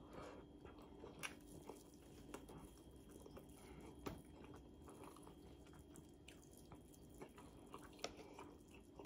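Faint chewing of a mouthful of rice and fried salmon, with a few soft, scattered mouth clicks.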